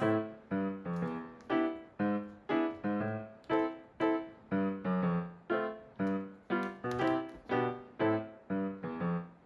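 Background music: a piano plays a gentle melody of single struck notes, about two a second, each fading before the next.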